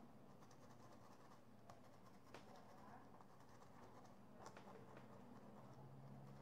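Near silence with a few faint, scattered light taps of a small paintbrush dabbing paint onto fabric.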